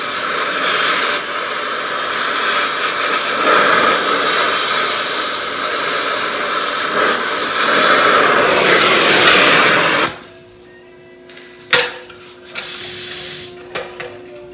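Oxy-fuel cutting torch flame hissing steadily as it heats a seized bolt to free it. The hiss cuts off suddenly about ten seconds in, followed by a click and a brief sharp hiss.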